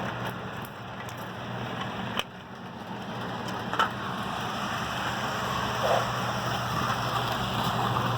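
HO-scale model locomotive running on the layout: a steady motor hum with rolling hiss from the wheels on the track, broken by two sharp clicks.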